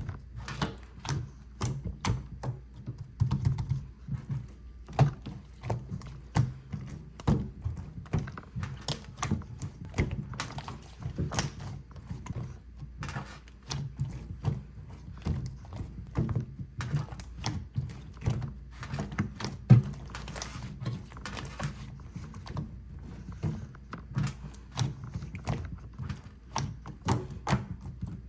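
Green tea croissant slime being squeezed and pressed by hand, giving a steady run of small irregular pops and clicks.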